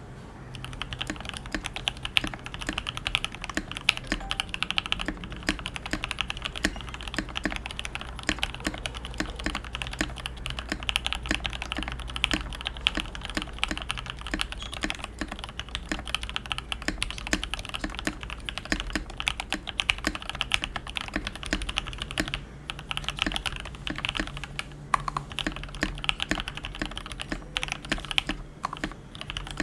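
Fast, continuous typing on a custom 60% mechanical keyboard: lubed Gateron Yellow linear switches and PBT keycaps on a red acrylic plate, in a transparent ABS plastic case. The typing has a few brief pauses in the last third.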